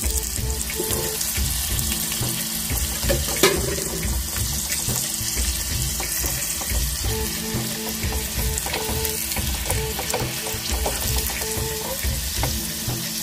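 Oil and ghee sizzling steadily in a small kadai as a tempering of garlic, curry leaves, cumin, mustard seeds and dried red chillies fries, with an occasional pop.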